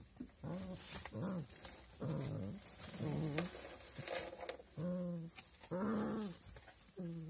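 Puppies vocalising during rough play-fighting: a run of about ten short, pitched growls and whines, one every half second to a second.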